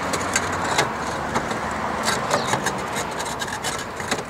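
Roof tiles scraping and clicking against each other as they are slid and set back into place on a tile roof, with frequent sharp knocks over a steady scraping noise.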